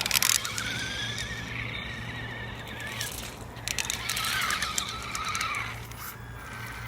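Traxxas LaTrax Teton RC truck's electric motor whining as it drives, the pitch rising and wavering in two runs. Bursts of crackling at the start and about three seconds in.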